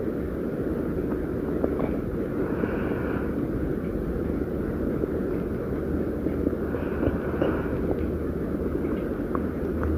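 A stomach growling, recorded close up: a continuous low rumble with a few higher gurgles now and then.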